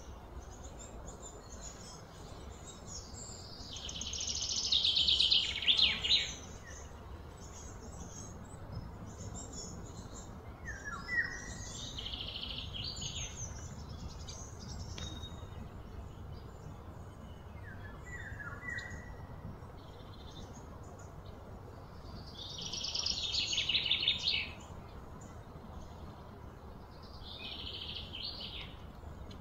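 High buzzy trilling animal calls, four times, two of them swelling over a couple of seconds and then stopping short, with short chirps in between over a steady low rumble.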